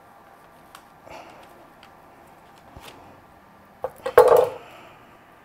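Kitchen knife cutting through a zucchini with a few faint crisp clicks, then a short rustle and tap on parchment paper as a slice is laid on the baking tray, about four seconds in.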